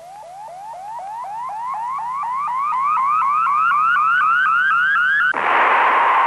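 Electronic sound effect for an engine animation: a train of short rising chirps, about four a second, climbing steadily in pitch and growing louder, that switches abruptly about five seconds in to a loud steady hiss.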